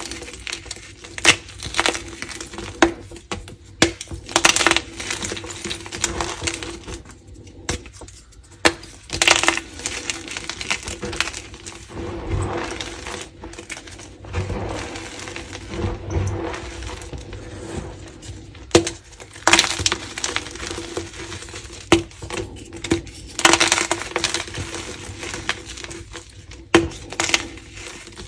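Blocks of pigment-dusted gym chalk being crushed and crumbled in bare hands, giving dense, irregular crunches and crackles with short pauses between squeezes.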